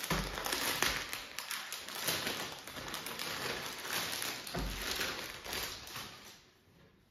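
Clear plastic packet crinkling and rustling as a folded dupatta is pulled out of it and handled: a continuous crackle that dies away near the end.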